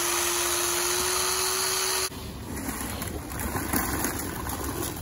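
Chainsaw running steadily at speed as it trims the base of a Christmas tree trunk, stopping abruptly about two seconds in. It is followed by quieter scraping and rustling of fir branches as the tree is pushed through a netting funnel.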